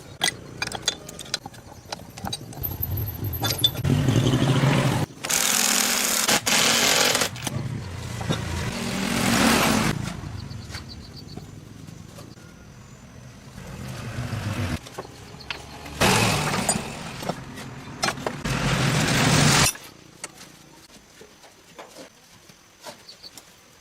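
A motorised tool or engine runs in two long bursts, the first about six seconds and the second about four, with clicks and knocks of handling between them.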